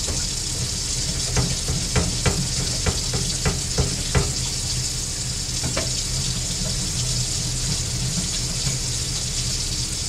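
Tap running steadily into a stainless steel sink, a constant hiss of water. Over the first six seconds or so there is a string of about nine light knocks and clicks as small copper pieces are scrubbed and handled on a wooden board under the water.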